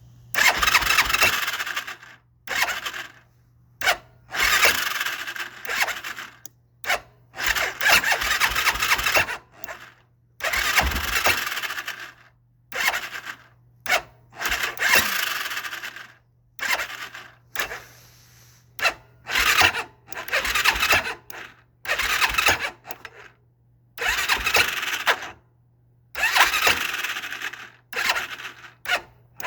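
Hisun 400cc ATV's single-cylinder four-stroke engine being cranked on its electric starter in repeated bursts, most lasting one to two seconds with a few brief blips between, and never firing. It has spark from a newly replaced CDI but won't start, which the owner puts down to ignition timing that is off.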